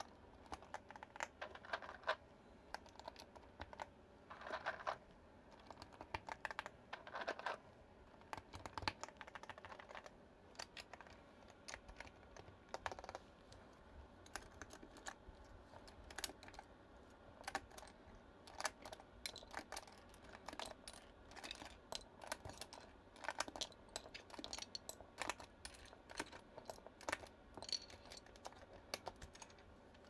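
Mechanical keyboard being typed on: irregular runs of fairly quiet key clacks with short pauses between them.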